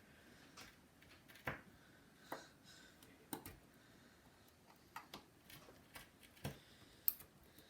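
Faint, irregular clicks and light scrapes of a thin metal pry tool working under the display of a first-generation iPhone SE, prying the screen up from the frame: about eight sharp ticks spread unevenly.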